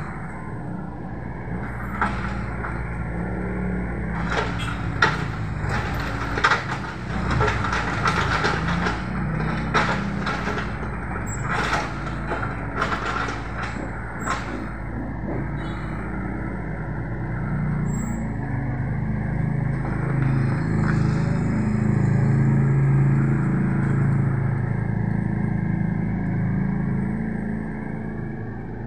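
Mini excavator at work: its diesel engine running steadily, with a series of sharp metal clanks and knocks from the bucket and arm through the first half. The engine grows louder and works harder for several seconds after the middle.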